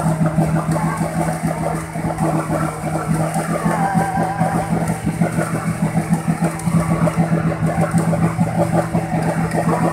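Off-road 4x4 engine running at a steady pitch, with a fast rough flutter to its sound.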